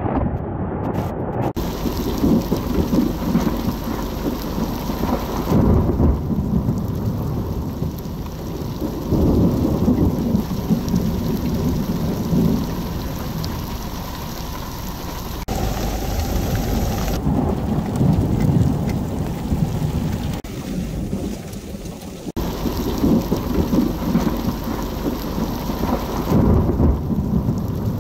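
Heavy rain pouring down in a steady dense hiss, with deep rumbling swells rising and fading several times. The sound changes abruptly a few times.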